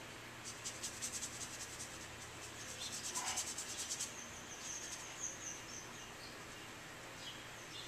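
Paintbrush scrubbing quickly over canvas, laying on acrylic paint in a fast run of dry, scratchy strokes that stops about four seconds in.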